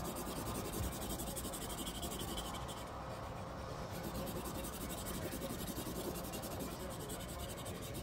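Pen scribbling rapidly back and forth, a steady dense scratching, as when crossing something out.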